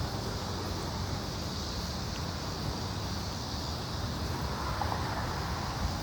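Wind rumbling on the microphone over a steady outdoor hiss.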